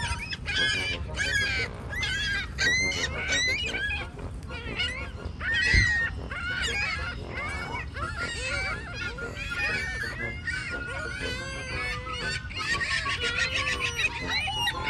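A flock of birds calling over one another: many short, overlapping honks and squawks that rise and fall in pitch. A dull thump comes near the middle.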